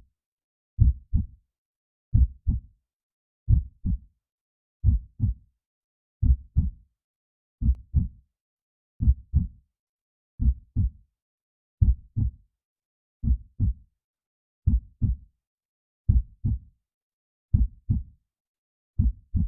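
Heartbeat sound effect: slow, steady beats, each a pair of low thumps (lub-dub) with the first louder, about one beat every 1.4 seconds, with silence between.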